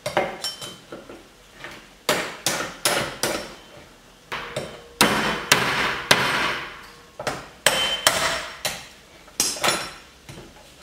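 Heavy cleaver chopping through a live lobster's claw joint onto a wooden cutting board: a dozen or more sharp chops and cracks of shell, some in quick runs of three or four.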